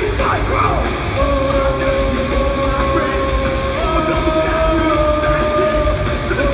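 Hardcore punk band playing live through a loud PA: distorted electric guitars, bass and drums, with yelled vocals near the start. From about a second in, notes are held steadily, stepping up in pitch about four seconds in.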